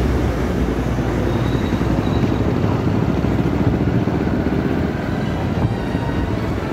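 Motorcycle riding along a road, heard from the rider's seat: the engine and road noise run steadily.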